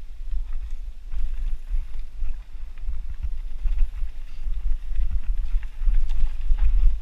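Mountain bike riding down a dirt singletrack, heard from a handlebar-mounted camera: a steady low rumble of tyres and frame shaking over the rough trail, with scattered rattles and ticks. It grows louder toward the end.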